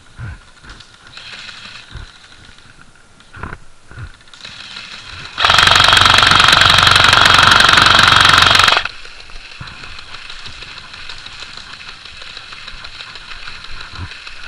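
Airsoft electric gun (AEG) firing a long full-auto burst of about three and a half seconds, a rapid buzzing rattle of shots, starting about five seconds in. Scattered small clicks and knocks come before it.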